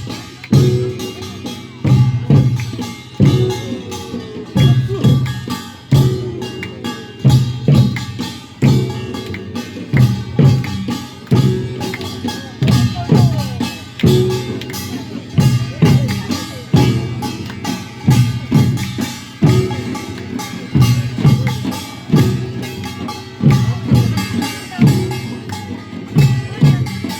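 Korean folk percussion music, drums and ringing metal percussion, playing a steady beat with a heavy drum stroke a little over once a second.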